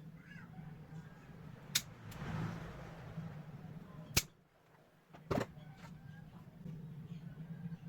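Homemade wooden slingshot fishing gun: three sharp snaps of its release and shot, the loudest about four seconds in, over a steady low hum.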